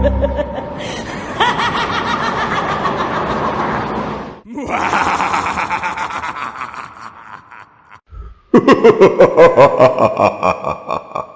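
Laughing sound effects played one after another: three separate laughs with short breaks between them at about four and a half and eight seconds in. The last is a loud run of rapid, evenly spaced "ha" pulses, about three a second, that fades out near the end.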